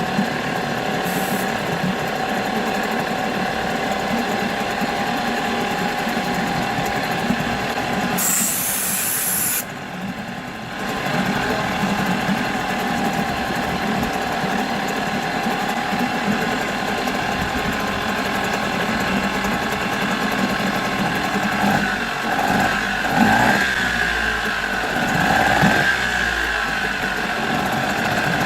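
Nissan 5 hp two-stroke outboard motor running steadily, firing again after a carburetor cleaning and a new spark plug. About eight seconds in there is a short burst of hiss, followed by a brief dip in the engine sound. The note wavers unevenly near the end.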